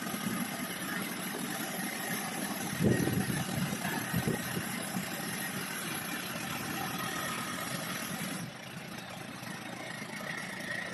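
Small crawler water-well drilling rig running steadily, with its engine note continuous. Two heavier knocks come about three and four seconds in.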